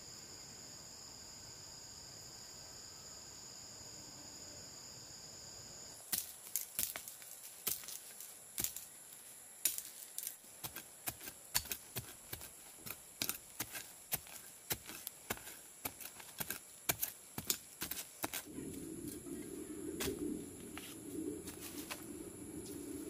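Insects trilling steadily for about six seconds, then a hand tool digging and chopping into soil in rapid, irregular strikes, several a second, for about twelve seconds, over a continuing high insect trill.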